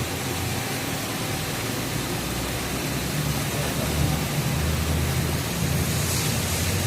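Steady low hum of running machinery under an even hiss.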